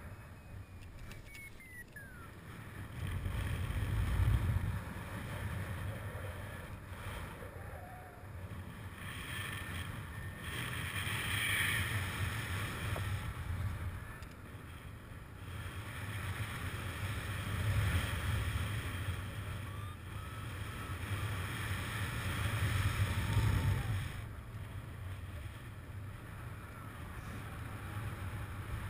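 Wind buffeting a camera's microphone during a paraglider flight: a low rumbling hiss that swells and eases in gusts every few seconds.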